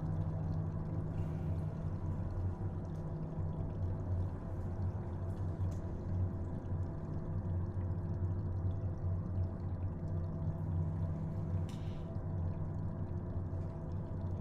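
Damp cave ambience: a steady low drone with a few faint water drips now and then, the clearest one about twelve seconds in.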